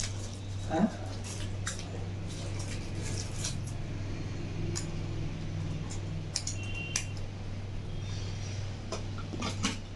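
Hands handling a plastic power adapter and cable: scattered light clicks and taps, over a steady low hum.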